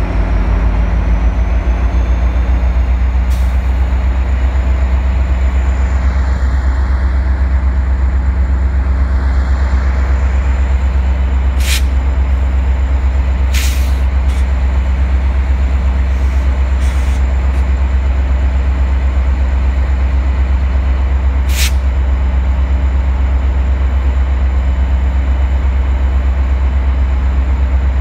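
Two GO Transit MP40PH-3C diesel-electric locomotives running with a steady low engine rumble, punctuated four times by a brief sharp high snap.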